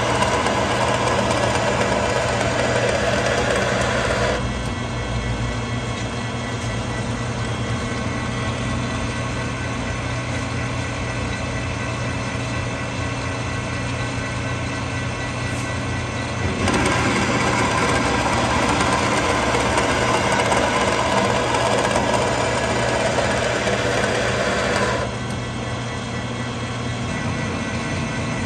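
Metal lathe running steadily while single-point threading an Acme lead screw with a carbide insert. The cut is heard as a louder, noisier layer over the machine's running sound for about the first four seconds and again for about eight seconds from just past the middle, with only the lathe running between passes.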